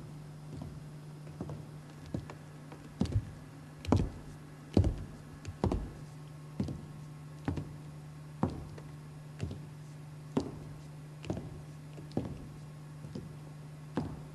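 A regular series of dull knocks, about one a second, over a steady low hum.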